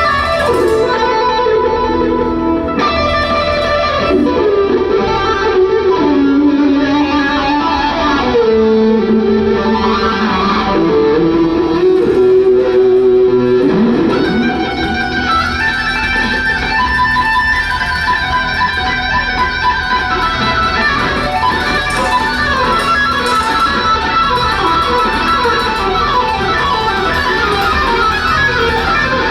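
Live rock music led by an electric guitar: long held, sliding lead notes, then faster runs of quick notes from about halfway through.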